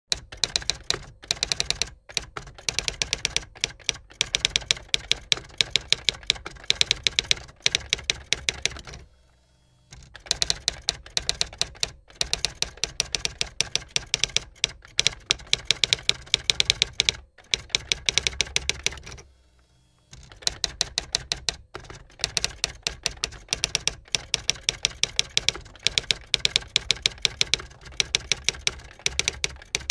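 Typewriter keys clacking in fast runs of keystrokes, broken by two short pauses, about a third and two thirds of the way through.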